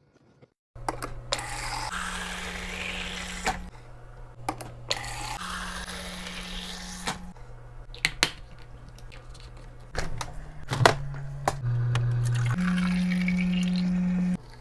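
Liquid being poured into containers, rising in pitch as each one fills, with a few sharp knocks of items being set down, over background music with a slow, steady bass line.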